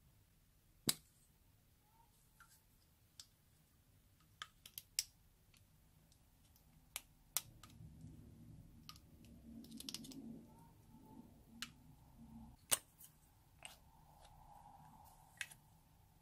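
Scattered sharp clicks and taps from handling a small plastic liquid-lipstick tube and its applicator wand, with a soft rubbing sound in the middle.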